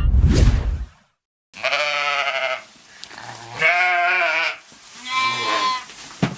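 A short whoosh in the first second, then an animal bleating three times, each bleat about a second long with a quavering, wavering pitch.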